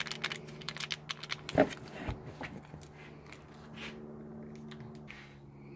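A small foil packet of Tannerite catalyst powder crinkling and rustling as it is handled and emptied into a plastic jar of the mix, with a sharp tap about a second and a half in. A steady low hum runs underneath.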